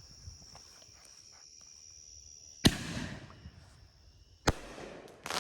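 Consumer canister firework shell fired from a mortar tube: a sharp bang as it launches, then a second sharp bang under two seconds later as the shell bursts, followed by a rush of noise near the end. Crickets chirp steadily before the launch.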